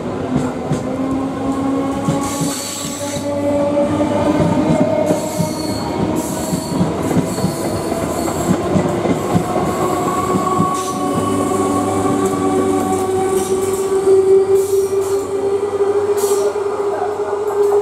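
Electric multiple unit (EMU) local train pulling out and gathering speed: a steady motor whine that slowly rises in pitch, over continuous clicking of wheels on the rails.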